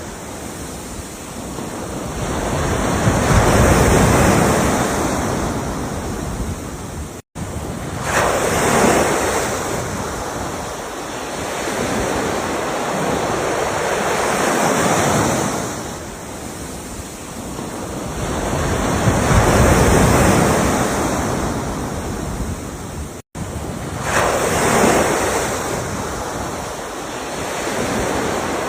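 Ocean waves breaking and washing up the shore, swelling in and fading about every five to six seconds. The sound cuts out for an instant twice.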